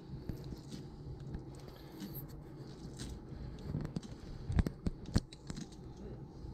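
Kitchen knife cutting into a whole catfish on a wooden cutting board: soft scraping and tearing as the blade works through skin and flesh, with two sharp knocks a little over halfway through.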